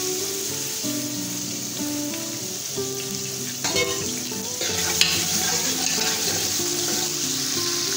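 Sliced onions sizzling steadily in hot oil in a large aluminium pot, stirred with a spoon in the second half, with a couple of short clatters near the middle.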